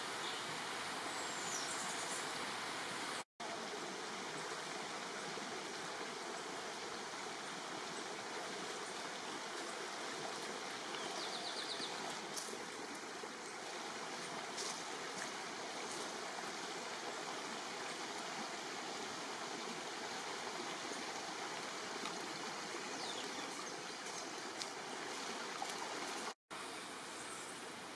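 Steady rushing outdoor background noise, like running water, with a few faint high chirps on top. The sound drops out for an instant twice, about three seconds in and near the end.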